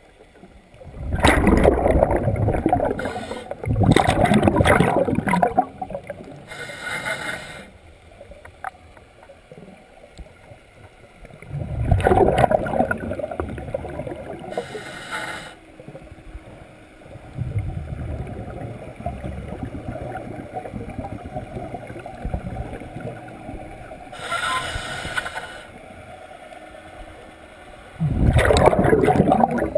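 Scuba diver breathing through a regulator underwater: short hissing inhalations alternate with louder bubbling bursts of exhaled air, several breaths at uneven intervals.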